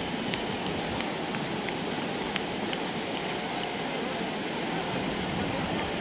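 Ocean surf breaking and washing up a beach, a steady rushing noise with a few faint clicks.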